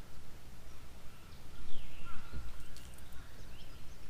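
A crow cawing faintly once, about two seconds in, with a few faint higher bird chirps over a steady low rumble.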